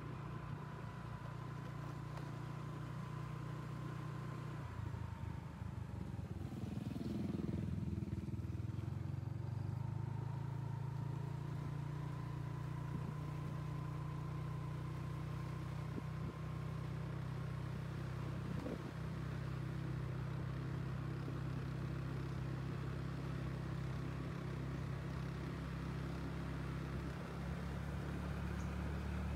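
Motorcycle engine running steadily under way, heard from the rider's seat; the engine eases off about five seconds in and picks up again a few seconds later.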